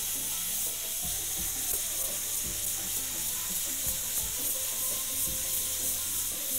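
Stovetop pressure cooker on a gas burner, hissing steam steadily as its pressure drops.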